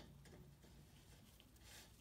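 Near silence with a few faint ticks, the first one right at the start, as a threaded gas pipe fitting is turned by hand.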